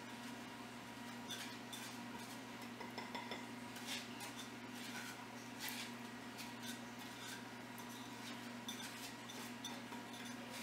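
Faint, irregular taps and scrapes of a spatula against a glass bowl as powdered sugar is scraped out into a glass mixing bowl, over a steady low hum.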